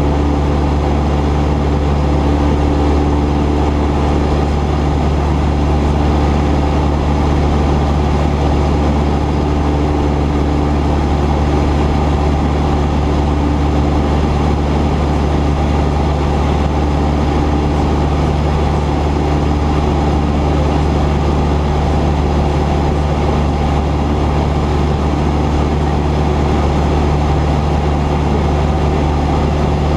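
Cessna 172's piston engine and propeller running at a steady, unchanging pitch.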